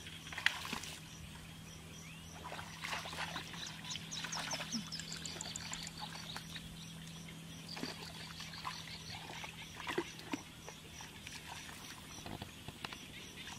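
Hands sloshing and splashing in shallow muddy water while groping for fish, with a few sharper slaps about half a second and ten seconds in. A bird calls a quick descending run of high notes about five seconds in, over a high chirp repeating about twice a second.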